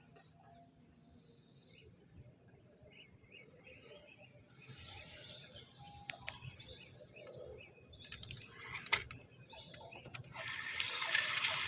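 Faint bird chirps over quiet outdoor background, with a few sharp clicks about eight to nine seconds in. Near the end a louder steady rushing noise comes in and keeps on.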